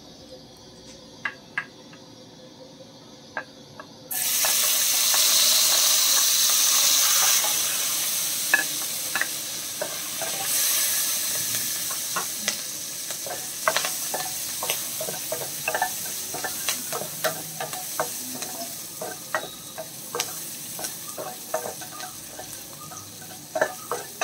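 Chopped ginger, garlic and green chillies hit hot oil in a stainless steel pan about four seconds in: a sudden loud sizzle that slowly dies down. A wooden spatula scrapes and knocks against the pan as they are stirred.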